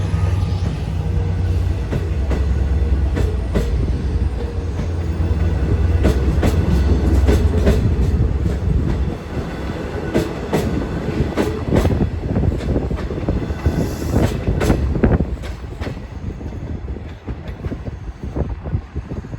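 A train passing: a steady low drone for about the first half, then the wheels clicking over rail joints in a quick string of clacks that thins out and grows quieter near the end.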